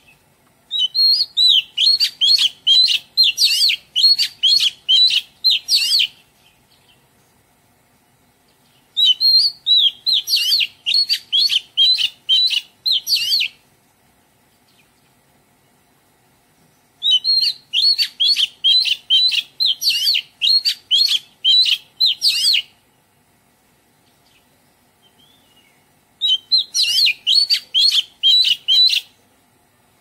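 Oriental magpie-robin singing in four bursts of rapid, repeated high notes, each burst a few seconds long, with pauses of two to three seconds between them.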